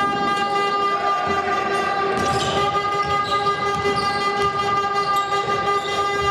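A steady, unbroken horn-like tone with overtones, held at one pitch throughout, over scattered thuds from basketball play.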